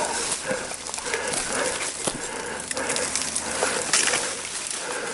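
Footsteps pushing through dense brush and leaf litter, with rustling and crunching at about one step a second.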